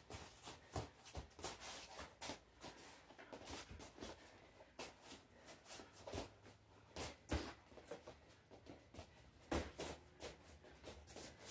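Faint, irregular taps, scuffs and thuds of wrestling shoes and bodies on a vinyl wrestling mat as two wrestlers grapple and move around, a few thuds standing out about seven and nine and a half seconds in.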